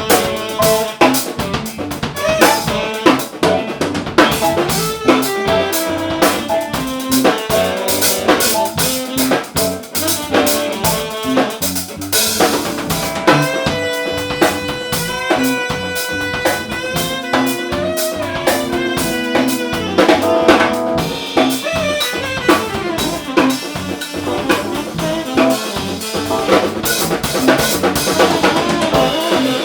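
Live band jam in A minor: a drum kit keeps a steady beat with snare, rimshots and bass drum, while pitched instruments play sustained notes over it.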